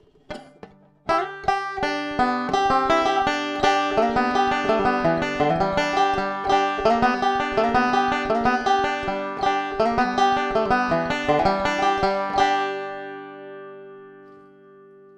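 Resonator banjo picked in a fast, continuous run of notes, heard through a Pick Up the World piezo pickup with EQ and treble boost, blended with a Behringer SL-75C microphone. After a couple of light clicks it starts about a second in, and near the end a last chord rings and fades away.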